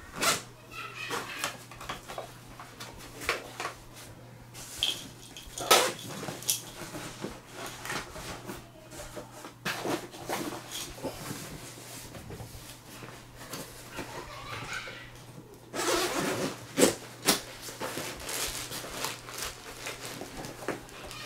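Rummaging through a nylon backpack: irregular rustling of fabric and packed gear with sharp clicks and knocks, and a zipper being worked. The handling gets busier near the end.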